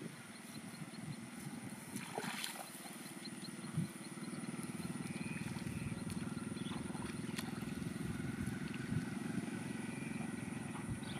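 Bare feet wading through shallow paddy water, with a few splashing steps and knocks in the first seconds. From about four seconds in, a steady low drone sets in and carries on. Faint bird chirps sound over it.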